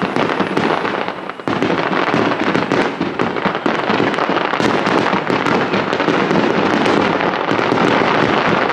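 Aerial fireworks bursting in a rapid, dense barrage: an unbroken run of overlapping bangs and crackles that gets louder about a second and a half in.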